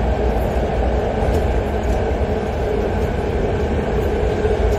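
Subway train running, heard from inside the car: a steady low rumble with a droning hum.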